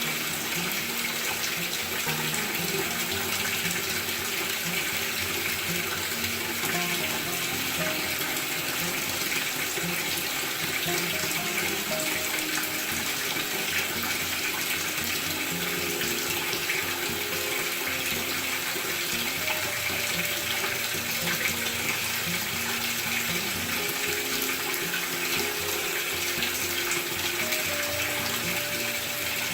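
Maytag top-load washing machine filling with water: a steady rush of water pouring into the tub. Background music plays underneath.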